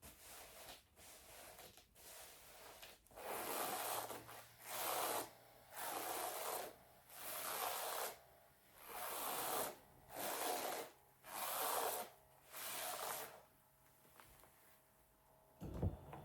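Velcro foot and leg massager running: about eight rasping bursts, a bit more than one a second, over a steady low motor hum.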